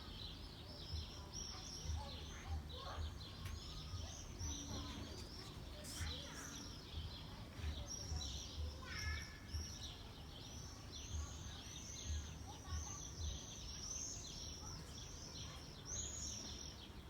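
A chorus of small songbirds chirping continuously: many short, high, arched notes overlapping one another, over a low rumble.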